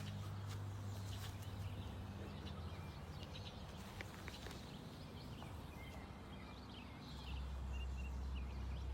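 Quiet outdoor background: a steady low hum that drops lower about seven seconds in, with scattered light clicks and a few faint chirps.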